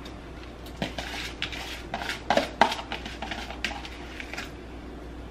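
A kitchen utensil clinking and knocking against a metal cooking pot on the stove: a run of clinks, the loudest two about two and a half seconds in.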